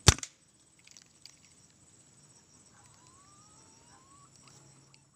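A single air rifle shot: one sharp crack right at the start that dies away within a quarter second. A faint steady insect buzz runs on behind it.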